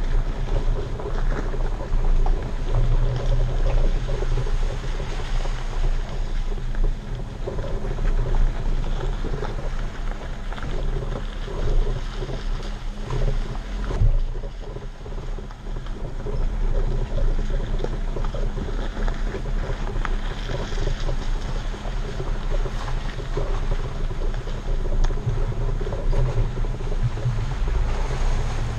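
Off-road Jeep Wrangler on mud-terrain tyres crawling along a dirt trail: a steady low engine and drivetrain drone with tyres rolling over dirt and stones, and a sharp knock about halfway through as it jolts over a bump.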